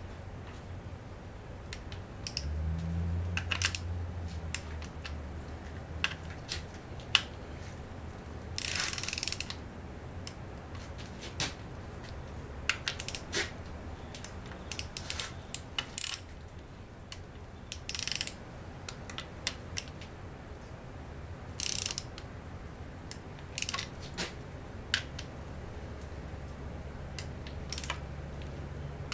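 Click-type torque wrench ratcheting in short bursts of clicks, with scattered single clicks, as the intake bolts on an outboard powerhead are run down to torque. A low hum comes in briefly a few seconds in and again near the end.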